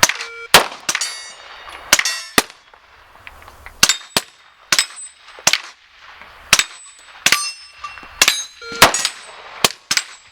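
A string of gunshots at irregular spacing, about fifteen in all, many followed by the ringing clang of steel targets being hit. A short beep sounds near the start and again near the end.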